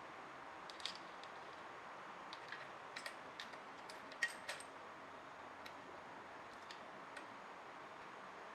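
Scattered light clicks and small metallic taps at irregular intervals, the loudest about four seconds in, over a faint steady hiss: tools and parts being handled during an engine swap on a small motorcycle.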